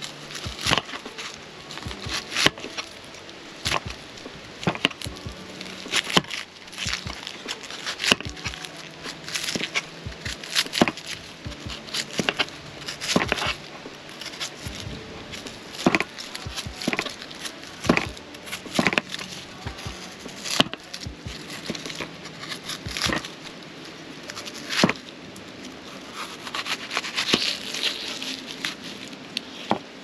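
Wood being chopped and split with an axe: sharp knocks and cracks at irregular intervals, roughly one every second or two.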